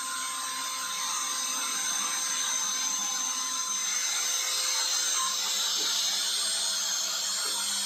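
Trim router spindle on a small CNC machine running at high speed as its bit cuts through foam board: a steady high whine over a constant hiss.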